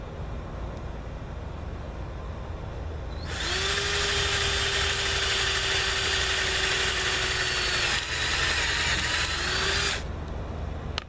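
Electric drill running into wood: the motor spins up about three seconds in and runs steadily for about four seconds, falters briefly, then runs again and speeds up before stopping suddenly.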